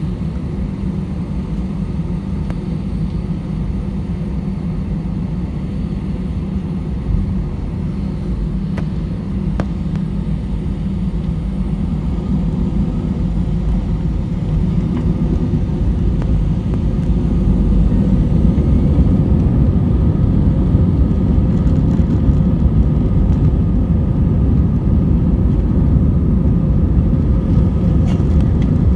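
Airbus A320-200 airliner engines and airframe heard from inside the cabin: a steady, loud rumble that grows louder about two-thirds of the way in, as on the approach to and start of the takeoff roll.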